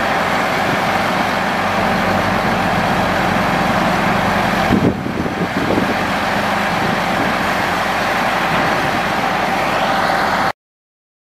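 Caterpillar 3126 inline-six diesel of a dump truck running steadily, driving the hydraulics as the raised dump bed is lowered. A brief clatter comes about five seconds in as the bed comes down onto the frame, and the sound cuts off abruptly near the end.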